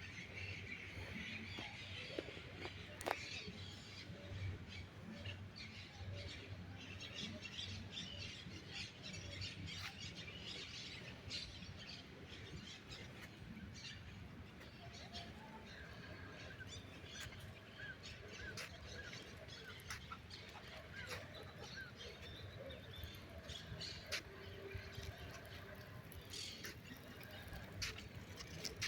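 Birds chirping and squawking in many short, scattered calls, maritaca parrots among them, over a steady low rumble with a few sharp clicks.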